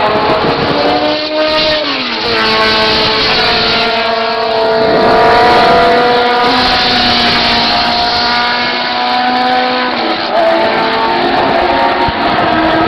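Historic Formula 2 racing car engines running at high revs as the cars take the corner, one after another. The engine pitch falls in steps about two seconds in and again about ten seconds in, as on downshifts, and holds high and steady in between.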